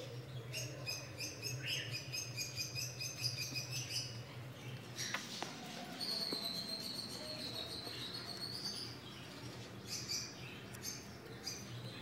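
Small birds chirping: a quick run of repeated high chirps for the first few seconds, then one long wavering whistled note, then scattered short calls near the end. A steady low hum runs underneath.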